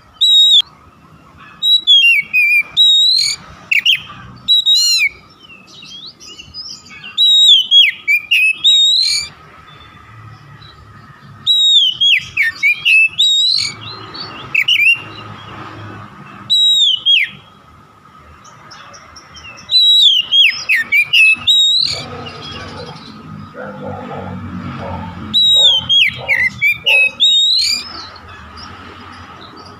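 Oriental magpie-robin (kacer) in full song: loud bouts of sharp, sliding whistled phrases, each bout a second or three long, repeated with short pauses between them.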